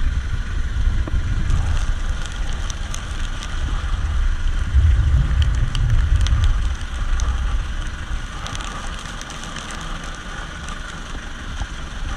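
Wind buffeting the microphone in a squall at sea, with rain and spray hitting. The low rumble swells about five seconds in and eases after, and scattered drop hits sound throughout.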